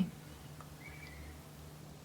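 Quiet room tone: a low steady hum, with one brief faint high tone about a second in.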